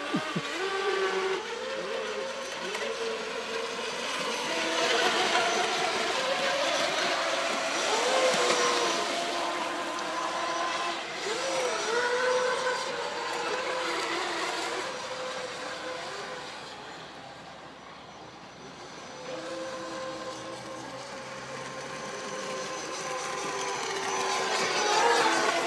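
Several electric radio-controlled racing boats running at speed, their motors whining in overlapping tones that rise and fall as they race around the buoys. The whine fades about two-thirds of the way through and swells again near the end as the boats come close.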